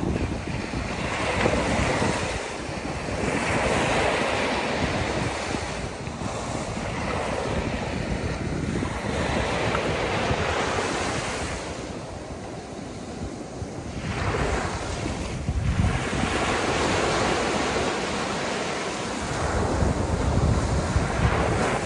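Ocean waves washing onto a beach, swelling and ebbing every few seconds, with wind buffeting the microphone.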